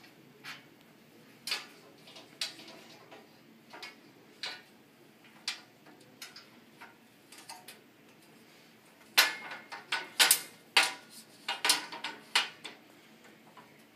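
Metal parts of a four-post holder stand clinking and knocking as its metal top plate is fitted and pressed onto the upright posts: scattered light clicks, then a quick run of louder knocks about nine seconds in.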